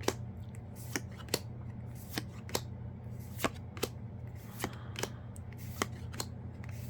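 Yu-Gi-Oh trading cards from a freshly opened booster pack being flipped through one at a time by hand. Each card gives a short, sharp flick, about two or three a second at an uneven pace, over a steady low hum.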